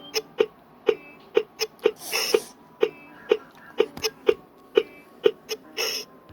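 Fisher-Price Link Squad panda toy's electronic speaker giving short, sharp beeps, about two a second, typical of its test mode. Two brief hissing bursts break in, about two seconds in and near the end.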